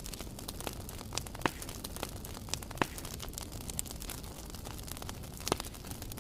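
Fire crackling over a steady low rumble, with sharp pops and snaps at irregular moments, a few of them louder than the rest.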